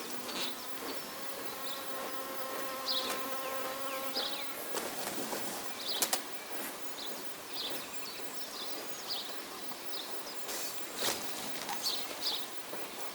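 A flying insect buzzing at a steady pitch for about four and a half seconds, then stopping. Short high bird chirps come and go throughout, with a couple of sharp clicks later on.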